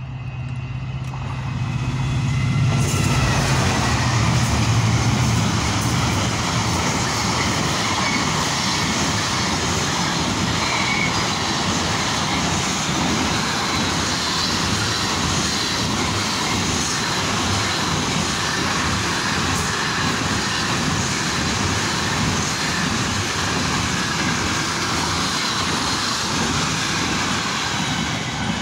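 Container freight train passing through a station on flat wagons, with steady wheel and rail noise from the long string of container wagons going by. A low drone over the first few seconds gives way about three seconds in to the louder wide noise of the wagons, which eases off slightly right at the end as the last wagons pass.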